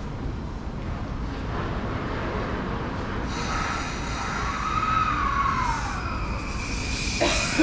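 JR Yamanote Line electric train running with a steady rumble. From about halfway in its motors give a thin electronic whine that glides down in pitch and then starts rising, and there is a sharp knock near the end.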